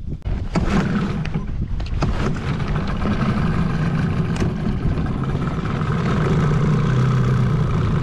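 Small tiller outboard motor on an aluminium dinghy starting up about half a second in, then running steadily with a low hum. A few sharp knocks sound in the first couple of seconds.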